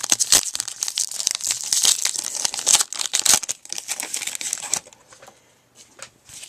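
A baseball card pack's wrapper being torn open and crinkled by hand: dense crackling and tearing for about five seconds, then a few light rustles.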